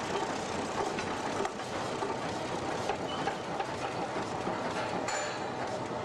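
Steady mechanical clatter and rumble from the pumping-station machinery, with frequent small clicks and knocks through it.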